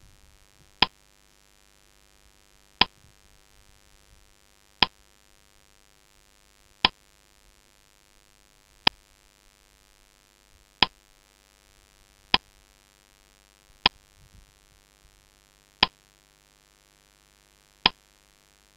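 Countdown-timer clock tick sound effect: single sharp ticks about every two seconds, with one extra tick a little past the middle, and near silence between them. It marks the answer time running out.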